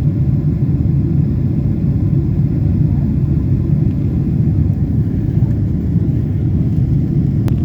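Steady low rumble of a jet airliner heard from inside the passenger cabin, with one sharp click near the end.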